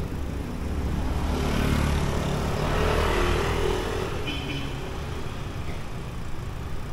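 A motor vehicle passes close by over the steady rumble of street traffic, its engine and tyre noise swelling to a peak about three seconds in, then fading.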